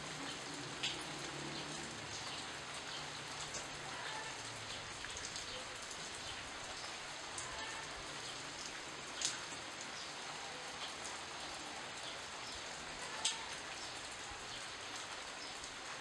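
Steady rain falling, with single drops now and then ticking sharply close by; the clearest come about a second in, about nine seconds in and about thirteen seconds in.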